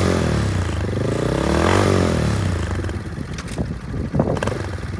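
2009 Honda CRF230M's air-cooled single-cylinder engine being revved: engine speed falls off a blip at the start, rises again to a second peak about two seconds in, then drops back toward idle, with a few sharp clicks near the end.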